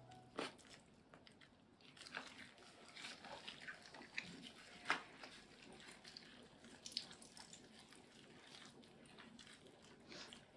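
Faint wet rubbing and squelching as a damp cloth wipes a wet cat's face and fur, with scattered small clicks, the sharpest about halfway through.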